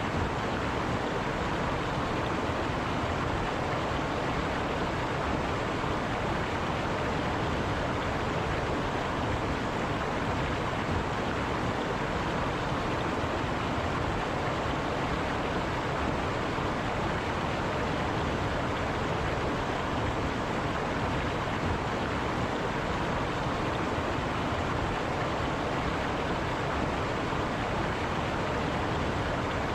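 River water running steadily over rocks, a constant even rush with no breaks.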